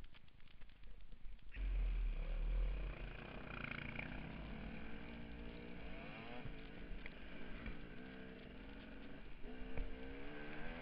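Dirt bike engine heard from the rider's seat, quieter for the first second and a half, then running louder with its pitch rising and falling as the throttle is worked, climbing twice.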